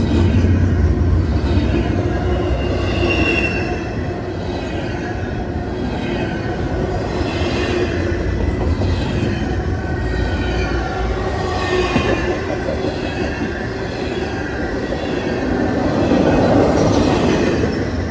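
Railroad cars rolling past close by: a continuous rumble of wheels on rail with high wheel squeal coming and going, growing a little louder near the end.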